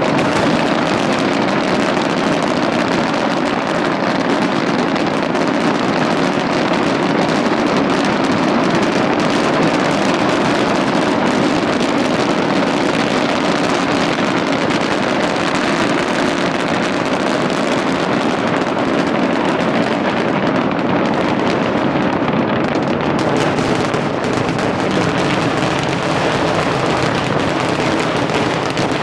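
A large fireworks display with many shells going off at once, their bangs and crackles blending into a steady, even noise with no single blast standing out.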